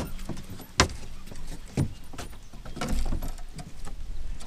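Scattered knocks and metallic clatter of fishing gear and footsteps on a boat deck, the loudest knock about a second in, as a landing net is grabbed during a fish fight.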